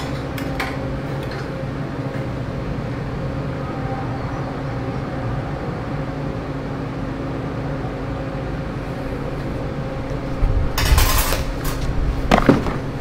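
Steady electrical hum, then near the end about a second of loud crackling hiss: a wire-feed welder laying a tack weld with mild steel wire on a stainless round bar. A single sharp metal knock follows.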